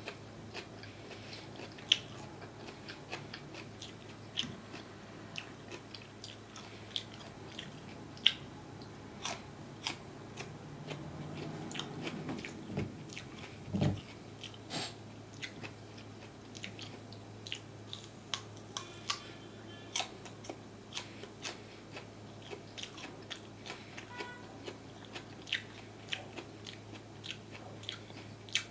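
A person chewing and biting crunchy food close to the microphone, with many sharp, irregular crunching clicks.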